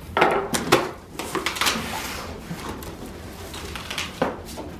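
Packing tape on a cardboard shipping box being cut and pulled off, then the cardboard flaps pulled open, with sharp scraping and ripping at first and softer cardboard rustling after. A short knock near the end.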